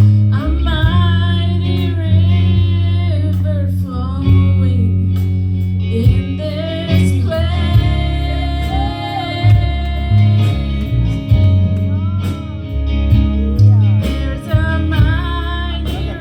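Live worship music: a singer carrying a flowing melody over guitar, with held bass notes that change every second or so and light percussion.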